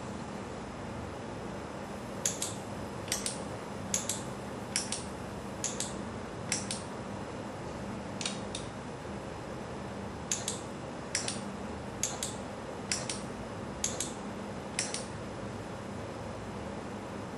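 Koganei iB Move electric linear actuators shuttling back and forth, a quick double click at each stroke, about one stroke a second, starting about two seconds in and stopping near the end. A steady low hum runs underneath.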